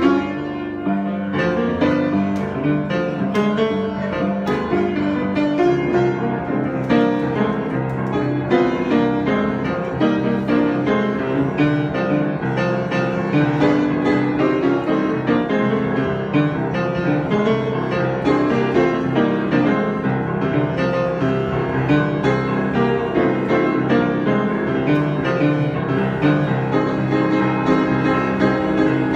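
Solo piano improvisation: a continuous flow of notes over sustained low chords, played at a steady level.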